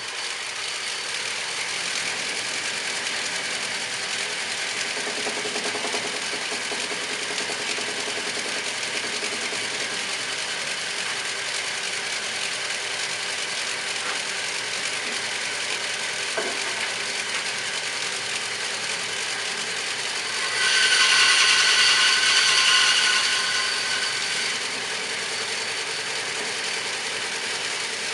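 A woodworking power tool runs steadily with a whirring hum. It gets louder for about four seconds near the end, then settles back to its steady running sound.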